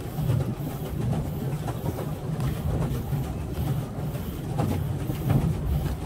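Swan pedal boat's pedal crank and paddle wheel turning as it is pedalled: a steady rhythmic churning rattle, about two beats a second, with water noise.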